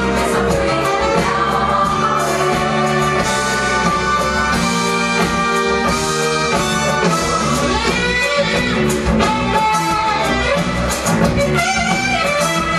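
Music with a steady beat, playing at an even loud level.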